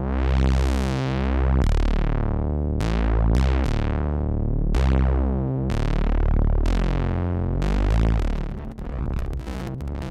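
Oberheim Two Voice Pro analog synthesizer playing a low bass line on one SEM voice while the patch is being dialed in. Each note opens bright and darkens as the filter closes, and the notes turn shorter and choppier near the end.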